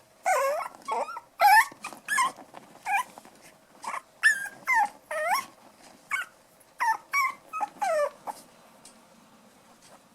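Five-week-old poodle puppies yelping and whimpering while playing: a quick string of short, high-pitched cries that swoop up and down in pitch, stopping near the end.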